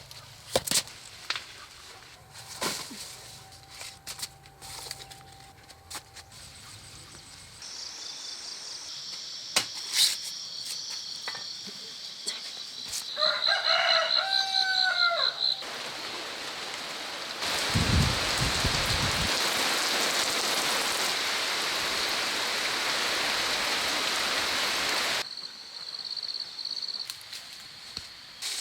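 A rooster crows once, about halfway through, over a high steady shrill and scattered clicks. In the latter part a loud even rushing noise sets in, starting with a low thump, then stops suddenly.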